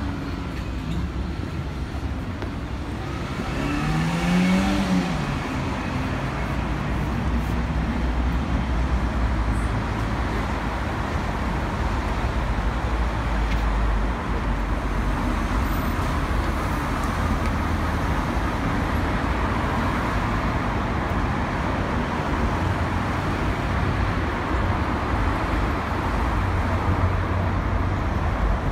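Continuous road traffic, cars and vans passing on a city street, with a brief pitched sound that rises and falls about four seconds in.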